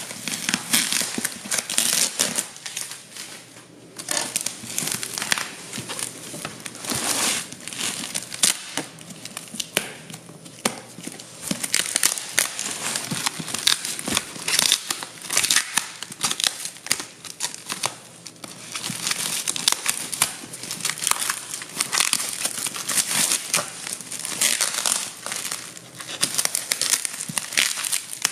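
Plastic packing tape being picked at, peeled and torn off a heavily taped parcel, crinkling and crackling in irregular bursts, with a knife slitting through the tape wrap.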